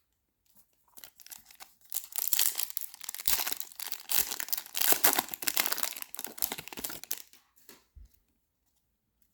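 Foil trading card pack wrapper being torn open and crinkled, a dense crackling rustle that peaks in the middle and dies down near the end, with a few light handling knocks.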